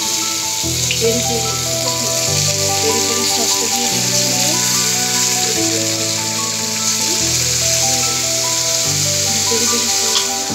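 Background music with quick short notes over low chords that change about every second and a half. Under it, a steady hiss of chicken breasts sizzling in oil in a frying pan.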